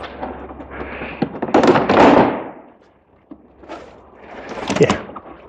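Plastic front bumper cover of a BMW Z3 being pulled free of the car's front end: scraping and knocking of plastic against the body, loudest for about a second near the start, with a second scrape and knock near the end.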